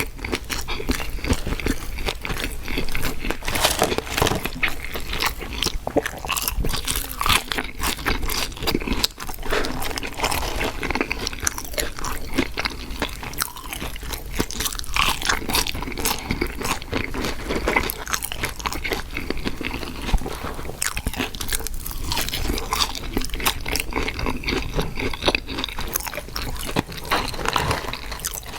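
Close-miked eating: a person biting, crunching and chewing fast food, with dense, irregular crackles and wet mouth sounds.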